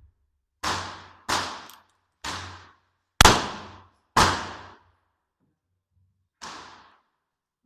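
Six shots from a .44 cap-and-ball revolver, a Santa Bárbara copy of the Remington 1858 New Model Army: sharp reports with echoing tails, roughly a second apart, the last one weaker.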